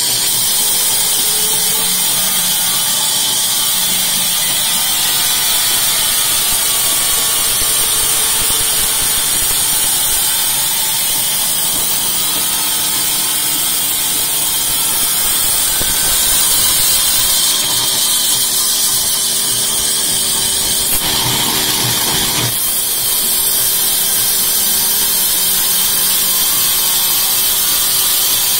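A sawmill band saw rips lengthwise through an acacia log: a steady, loud high hiss of the blade cutting wood over the steady hum of the machine's motor.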